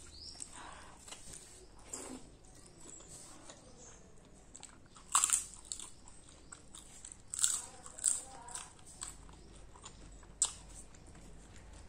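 Close-miked eating: a crisp papad bitten and crunched, with a few loud, sharp crunches in the second half and quieter chewing between them.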